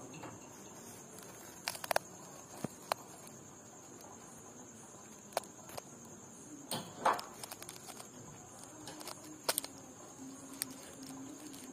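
Quiet night ambience: a faint steady high-pitched chirring, likely insects, with scattered small clicks and taps and a brief rustle about seven seconds in.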